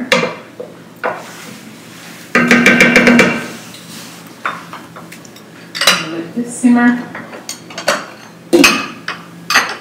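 Wooden spoon stirring and knocking against a stainless steel cooking pot, with clattering cookware in bursts. Near the end a metal-rimmed pot lid clinks as it is set on the simmering pot.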